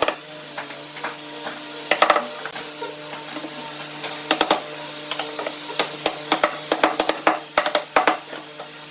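Irregular sharp clicks and knocks in short clusters, thickest near the end, over a steady low hum.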